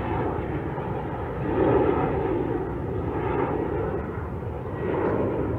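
Steady rushing drone of an airliner in flight, as heard from inside the cabin, swelling slightly about a second and a half in.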